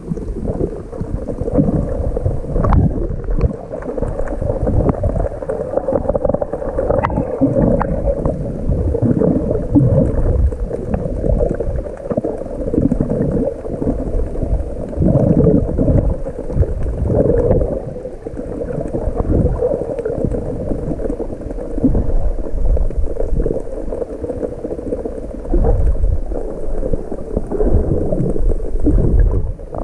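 Water gurgling and churning around a camera carried by a swimmer, in irregular surges from the swimming strokes.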